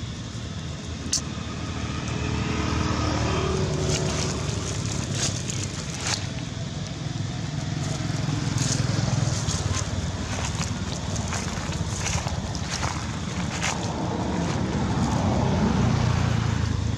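Low rumble of motor vehicles passing by, swelling and fading three times. Scattered sharp clicks and crackles in the middle.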